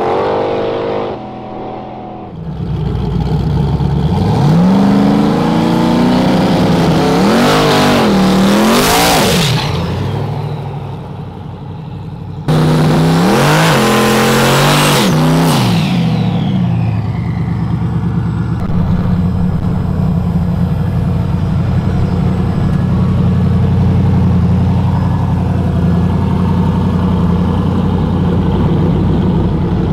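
Street drag cars accelerating hard: the engine pitch climbs, drops back at gear changes and climbs again, in two passes split by an abrupt cut. From about two-thirds of the way through, a steady lower engine drone takes over.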